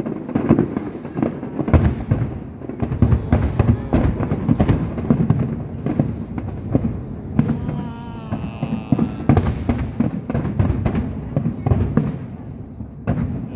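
Aerial fireworks going off in quick succession: a dense, continuous run of bangs and crackling shell bursts.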